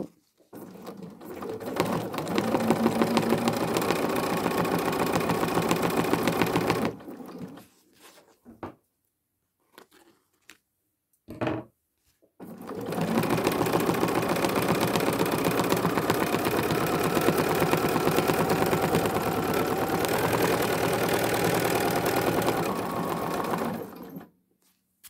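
Bernina sewing machine running fast for free-motion quilting, the needle stitching in a rapid, even rhythm. It runs for about seven seconds, stops for several seconds with only a few short clicks, then runs again for about eleven seconds.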